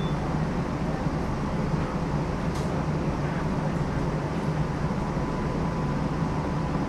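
New Orleans Canal Street streetcar running along its track: a steady low noise of its motors and wheels on the rails.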